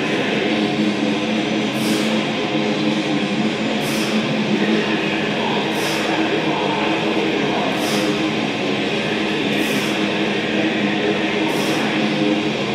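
Background music with singing, a short cymbal-like hit about every two seconds.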